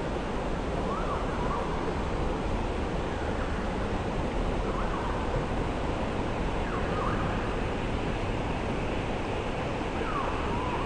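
Steady rushing of flowing creek water, with a bird's short whistled call, rising then falling, heard faintly a few times.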